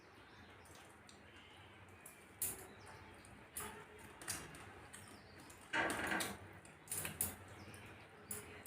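Eating sounds: a string of short mouth smacks and clicks from chewing and mixing food, with one longer, louder noisy burst about six seconds in.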